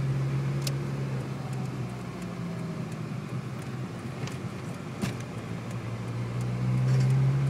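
Ford Escort RS Turbo's turbocharged 1.6-litre four-cylinder engine running, heard from inside the cabin: a steady low hum that eases off slightly in the middle and swells louder near the end, with a few light clicks.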